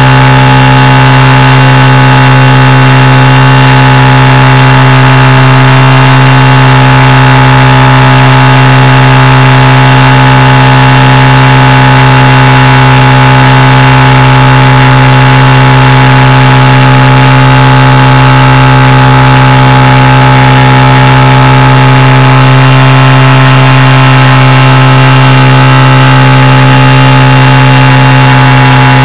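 Small amphibious aircraft's engine running steadily at low power while it taxis slowly on the water. The sound is loud, with an even drone that holds one pitch throughout.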